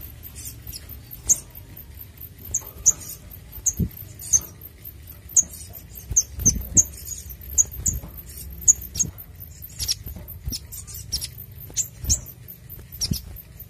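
Olive-backed sunbird giving a string of short, sharp, very high chirps at an irregular pace. A few soft thumps come as it hops and flutters on the cage perches.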